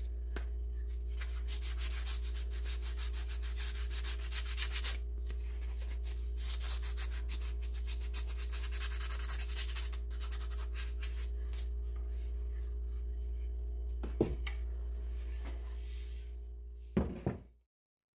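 Sandpaper rubbed quickly back and forth by hand over the wooden handle end set in the eye of an axe head, sanding it flush, over a steady low hum. A knock comes near the end and another just after, then the sound stops suddenly.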